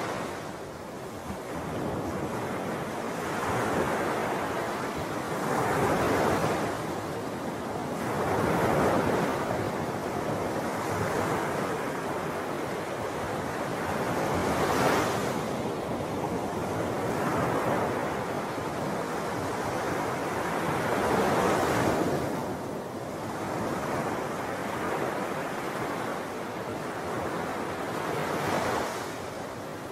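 Wind and small waves lapping at the lake shore: a steady rushing noise that swells and eases every two or three seconds.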